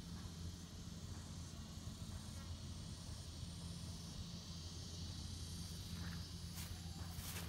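Steady high insect drone over a low, even rumble, with a few footsteps in grass near the end.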